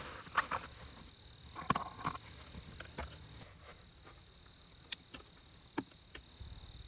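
Cloth rustling and soft knocks as a pouch is pulled off a table lamp and the lamp is set down, then a sharp click about five seconds in as the lamp is switched on. Under it a steady high-pitched cricket trill.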